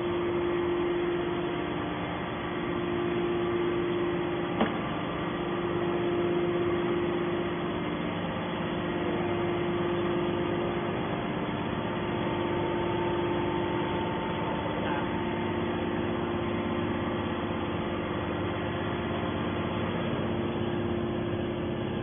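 Steady hum of a hydraulic scrap-metal baler's power unit, its electric motor and pump running without change in pitch, with one sharp click about four and a half seconds in.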